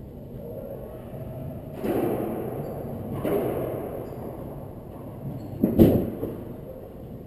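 Racquetball rally: hard ball strikes off racquets and walls, each ringing on in the enclosed court's echo, three in all, the loudest and sharpest about six seconds in.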